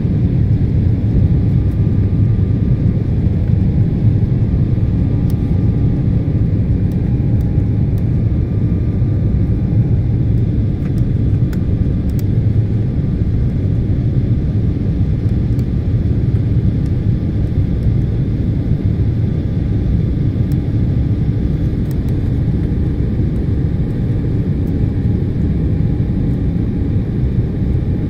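Jet airliner cabin noise during the climb after takeoff: a steady low rumble of the engines and rushing air, heard from inside the cabin at a window seat, with a faint hum of steady tones above it.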